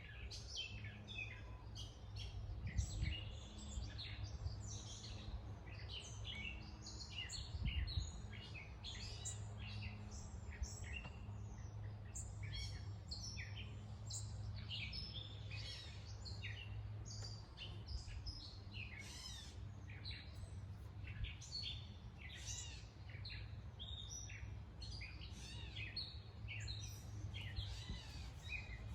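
Several wild birds chirping and singing in short overlapping calls and trills, over a steady low hum. Two soft low thumps about three and eight seconds in.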